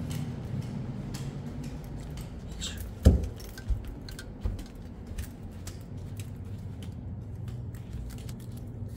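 Footsteps and handling noise while walking across a bare concrete floor: one sharp thump about three seconds in, then a couple of softer ones and scattered faint clicks, over a low steady hum.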